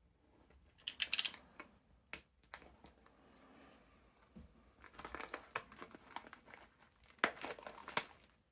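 Packaging of a sealed trading-card booster display box crinkling and tearing as it is opened, in several irregular crackly bursts, the longest near the end.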